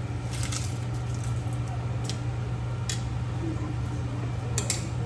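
A cooking utensil clinking and scraping against a pot several times, over a steady low hum.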